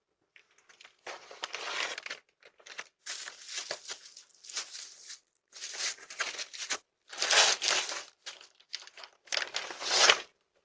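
Irregular bursts of rustling, crinkling noise, each lasting up to about a second, picked up by a doorbell camera's microphone.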